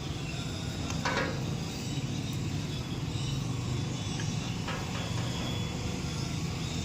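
A steady low mechanical hum, with two light clicks about one second in and again near five seconds.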